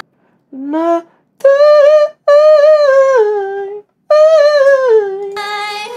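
A lone voice hums a few high notes with no accompaniment, in four short phrases cut apart by abrupt silences. The first note climbs, and the later phrases step and slide downward, the last one settling on a held note.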